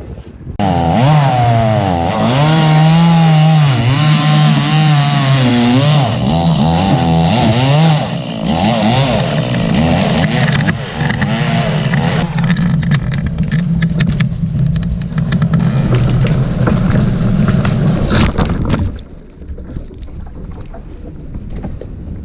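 Two-stroke chainsaw cutting ash trees. Its engine pitch dips and rises under load for the first several seconds, then holds steadier while cutting, and about 19 seconds in it drops to a quieter, lower running.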